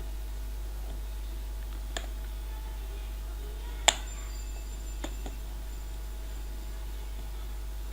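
A few sharp plastic clicks from the laptop's keyboard latches and case being handled and pried, the loudest about four seconds in, over a steady low hum.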